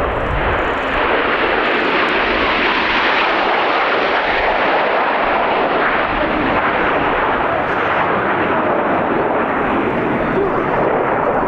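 Jet noise of Aermacchi MB-339 trainers flying the display, their turbojets making a loud, steady rush that swells over the first few seconds and slowly softens toward the end.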